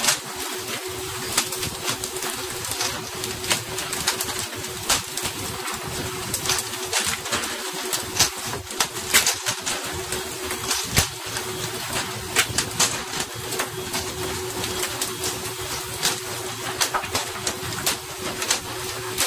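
A pole-and-line tuna boat at work: a steady hum with one constant tone under a hiss of water spray, broken by frequent sharp, irregular slaps as hooked tuna are flung onto the deck.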